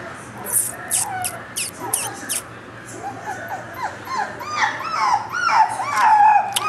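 Shiba Inu puppy whimpering, then from about halfway giving a string of short up-and-down howling yelps that grow louder toward the end. A run of sharp high clicks comes in the first couple of seconds.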